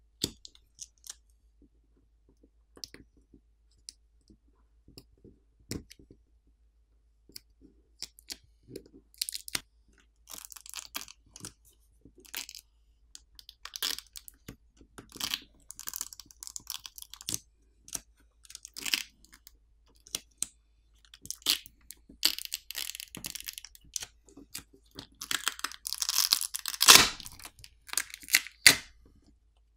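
Battery adhesive pull tab being peeled from under a smartphone's lithium-ion battery to free it from the midframe: scattered small clicks, then longer stretches of peeling noise from about nine seconds in, densest near the end, with one sharp click just before the end.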